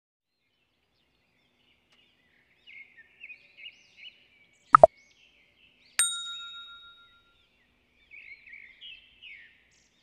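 Small bird chirping in short bursts, broken by a sharp double click about five seconds in and then a bright bell-like ding that rings out for about a second. The click and ding are subscribe-button animation sound effects; more chirps come near the end.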